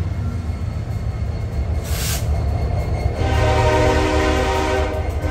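Union Pacific diesel locomotives passing close by with a steady deep engine rumble; about three seconds in a multi-tone train horn chord sounds for about two and a half seconds. A brief hiss comes about two seconds in.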